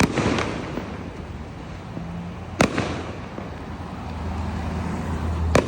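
Consumer fireworks going off: three sharp bangs about two and a half to three seconds apart, each followed by a fading crackle.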